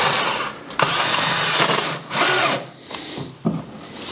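Cordless drill-driver driving a short screw through a plastic screwdriver holder into spruce wood, running in three short bursts, the middle one the longest.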